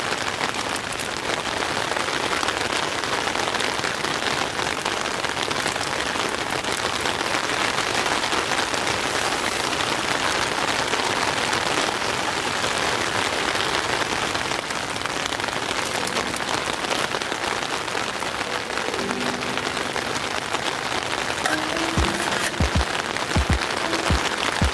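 Steady rain pattering on a nylon tent fly, heard from inside the tent. Background music with short pitched notes fades in during the last few seconds.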